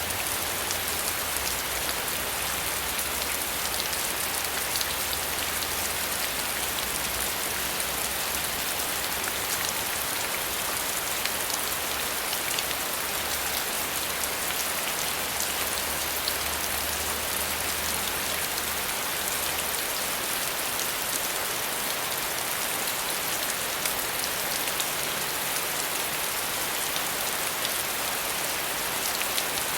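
Steady rain falling: a dense, even hiss of drops with scattered individual drop taps.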